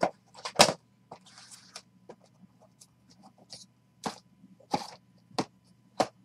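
Sealed cardboard trading-card boxes being shifted, stacked and set down on a table by hand: a short scrape of boxes sliding, with sharp knocks as they are set down, one about half a second in and several more near the end.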